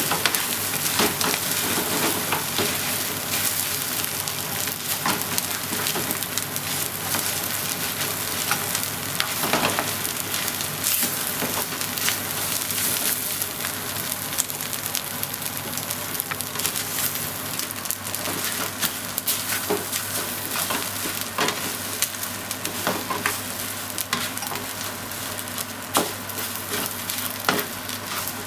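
Fried rice sizzling in a frying pan while a spatula stirs and turns it, with frequent short scrapes and taps of the spatula against the pan over a steady sizzle.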